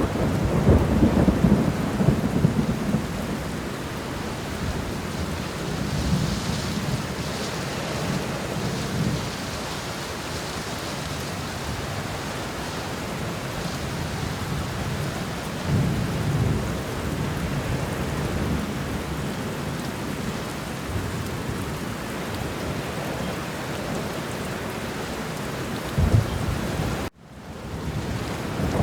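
Steady rain with rolling thunder: a low rumble in the first few seconds and another about halfway through, and a short sharp thump near the end. Just after the thump the sound cuts out for a moment and swells back in.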